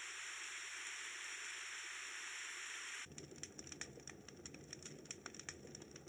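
Dreamegg white noise machine playing a steady hiss that switches about three seconds in to a track of many irregular small crackles and patters, like rain, as the next built-in sound is selected.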